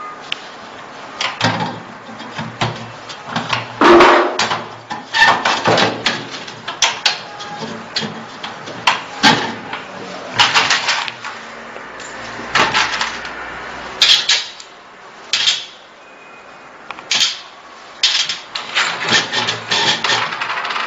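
Steel PCB magazine rack being handled and adjusted: irregular clanks, knocks and sliding scrapes of metal parts, some with a short ringing tail. The loudest clank comes about four seconds in.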